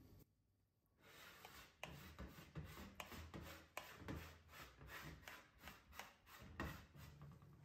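A spoon stirring and scraping thick mayonnaise around a ceramic plate: faint, irregular scrapes with small taps of the spoon on the plate, starting about a second in.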